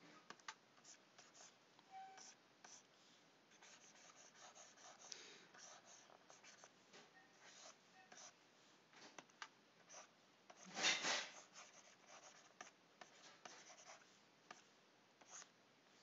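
Faint scratching of a pen stylus on a graphics tablet: many short brush strokes, with one louder, longer rustle about eleven seconds in.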